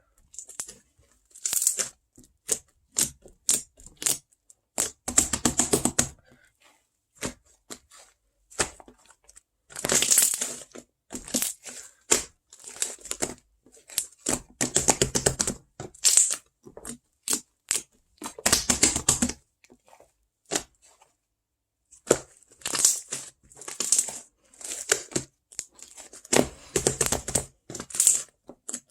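Close-up crinkling, crushing and tearing of a crackly material, in bursts of crackle with short clicks and brief pauses between them.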